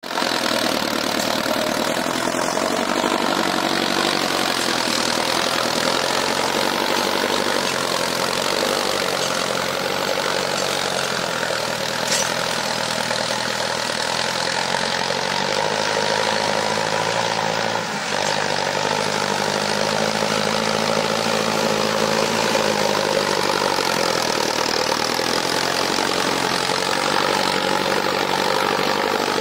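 Mahindra Arjun Novo 605 tractor's diesel engine running steadily under load as it pulls a tined cultivator through dry soil, its pitch rising slightly through the middle and settling back.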